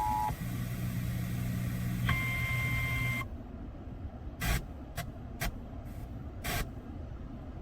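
A radio's EAS two-tone attention signal cuts off a fraction of a second in. About two seconds in, a single steady alert tone sounds for about a second, like the NOAA weather radio alarm tone. Then the radio audio drops out, leaving a few short clicks and bursts of radio static.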